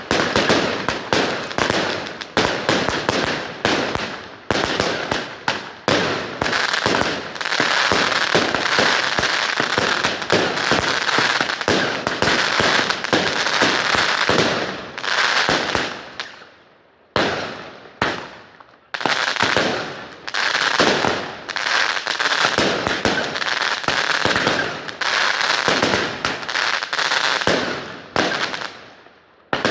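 Fireworks going off in dense runs of rapid cracks and bangs over continuous crackling, with brief lulls about sixteen and eighteen seconds in.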